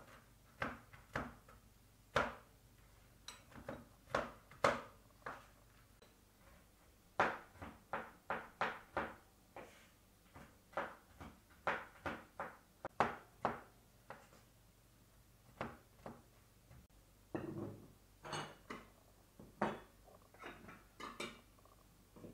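Knife chopping walnuts on a bamboo cutting board: short, sharp knocks of the blade striking the wood at an irregular pace, one to three a second.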